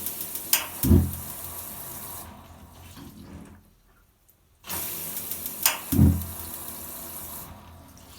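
Hot water tap run twice on a camper gas boiler. Each time the water hisses for about three seconds, with a sharp click and a low metallic thud about a second in: the 'dink' the boiler should make to let the gas through to fire.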